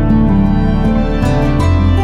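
Slow, gentle instrumental background music with held notes that change every half second or so.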